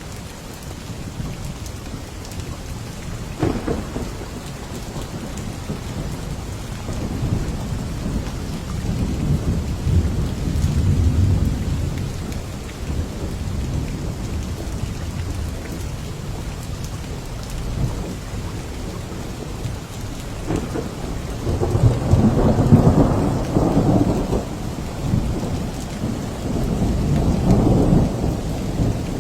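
Steady rain with rolling thunder. The thunder swells into low rumbles, loudest about two thirds of the way through, with another rumble near the end.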